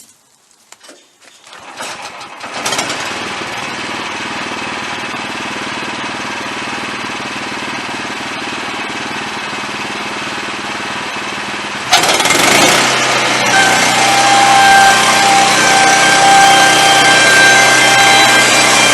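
Wood-Mizer LX25 band sawmill starting up about two and a half seconds in and running steadily. About twelve seconds in it gets louder, with a steady whine, as the band blade engages and starts cutting into a poplar board.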